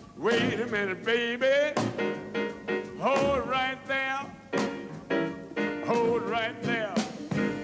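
Small jump-blues combo playing live, with a lead melody that bends and wavers in pitch in short phrases over the accompaniment.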